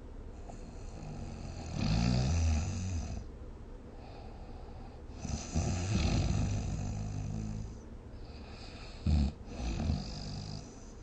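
A sleeper snoring, three rough snores a few seconds apart, the middle one the longest.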